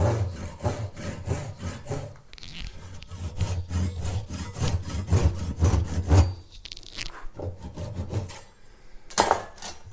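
Small hand saw cutting a narrow slot in a hardwood pen blank in quick, short back-and-forth strokes, in two runs with a brief pause between, then stopping. A short clatter near the end.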